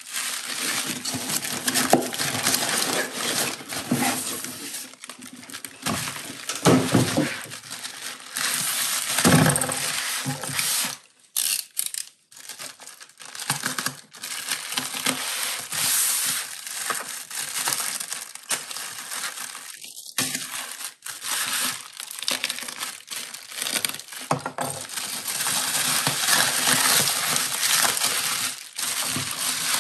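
Bubble wrap crinkling and crackling as it is handled and its packing tape is cut with a craft knife, with a short lull partway through.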